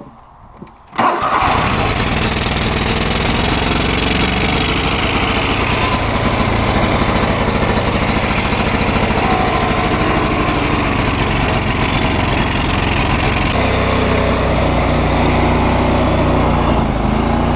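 Cub Cadet 3000 Series lawn tractor engine starting about a second in, then running steadily; its note changes about two-thirds of the way through. It is running with some old, bad gas still in the fuel system, on a carburetor that was cleaned but not rebuilt.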